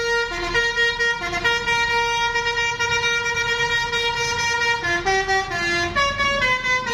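A bus's 'telolet' musical horn, a set of tuned horns playing a tootling tune. Short stepping notes at first, then one long chord held for about three seconds, then quick stepping notes again near the end, over a low rumble.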